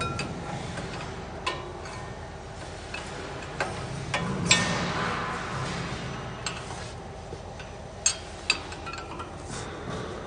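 Steel open-end spanner clinking and scraping against the bearing bolts and metal frame of a jute cutting machine as the bolts are adjusted: a string of sharp metallic clicks a second or two apart, with a louder click and a short scrape about four and a half seconds in.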